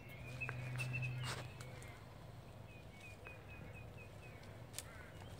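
Faint clicks and scratches of a cat's claws gripping bark and branches as it climbs, over a low hum that fades out after about a second and a half. Around the middle comes a quick run of short high chirps.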